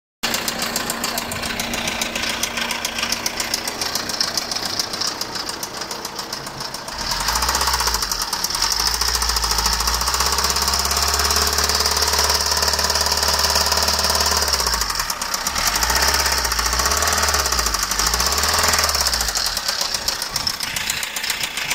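Fiat 1.3 Multijet 16-valve turbodiesel four-cylinder running with a fast, ugly knock that gets heavier when revved. It is held at higher revs from about seven seconds in, blipped three times, then let back down near the end. This is connecting-rod knock: a spun, flattened bearing on the no. 1 rod, after the engine ran very low on oil.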